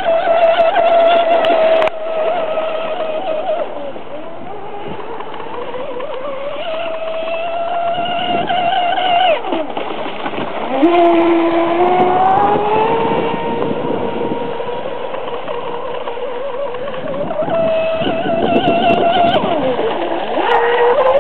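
Electric RC speedboat on a 3S LiPo with a 36 mm brass propeller, its motor whining at a high pitch that rises and falls with the throttle. The whine drops sharply about nine and a half seconds in, then climbs back slowly, and dips again near the end.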